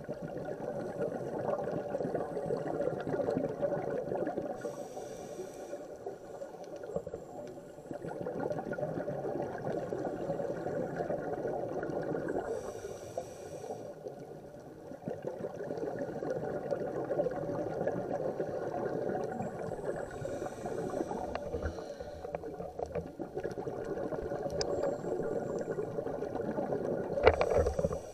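Scuba regulator breathing heard underwater: a short hiss on each inhale, then a long rush of exhaust bubbles on each exhale, repeating about every seven seconds. A sharp knock near the end.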